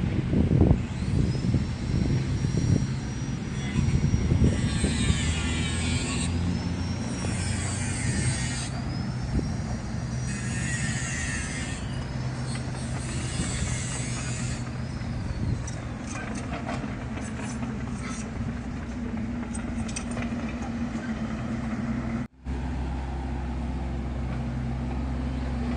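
Kubota U50 excavator's diesel engine running steadily under work. Through the first half a high whine repeatedly rises and falls, with bursts of hiss, as the hydraulics work; the sound drops out for an instant about 22 seconds in.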